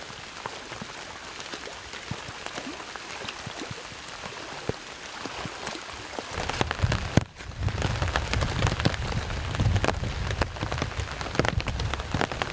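Heavy rain falling steadily: an even hiss dotted with the ticks of single drops. A little past halfway, a low rumble comes in under the rain and the sound grows louder.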